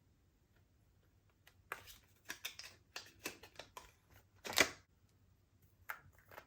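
Slime being squished and worked by hand: a run of short sticky squelches and clicks, the loudest a longer squelch about two-thirds of the way through, with one more click near the end.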